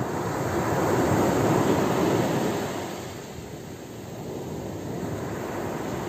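Ocean waves breaking and washing up a small-pebble beach: one wave swells to its loudest about a second and a half in and dies away, then a smaller wash comes in near the end.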